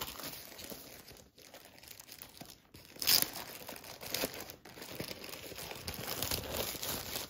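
Plastic wrapping crinkling and rustling as a rolled diamond-painting canvas is handled and unwrapped, with a sharper, louder rustle about three seconds in.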